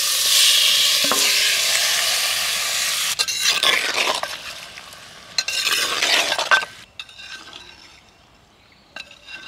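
Marinated chicken gizzards tipped into hot mustard oil in a clay pot sizzle loudly for the first few seconds. They are then stirred and turned with a metal ladle, the sizzle and scraping fading to a low hiss about seven seconds in, with a small knock near the end.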